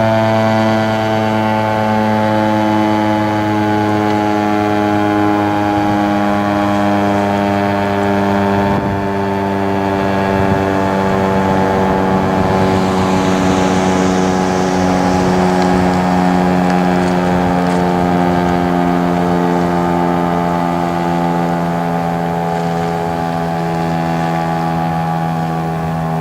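Federal Signal STH-10 single-tone outdoor warning siren sounding a loud, steady wail whose pitch sinks slowly and evenly throughout, the sign of its rotor slowing as the siren winds down.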